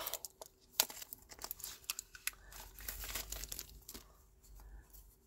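Plastic ink pad case being handled on a tabletop: a scatter of small clicks and brief rustles, with one sharper click about a second in.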